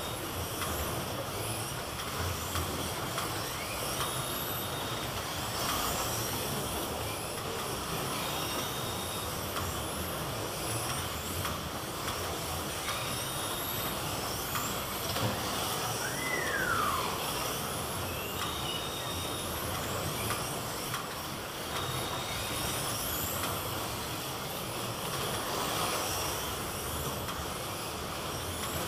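Electric slot cars racing round a multi-lane track: the small motors whine in repeated rising sweeps as the cars accelerate out of the bends, over a steady rush of cars on the track. A short beep sounds about every four to five seconds.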